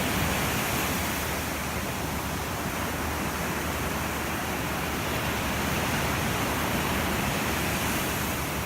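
Sea waves washing onto a beach: a steady rushing surf that swells a little about a second in and again a few seconds later.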